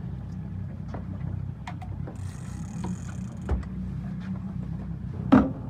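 Boat's engine running with a steady low rumble, with a few sharp knocks on deck; the loudest knock comes near the end.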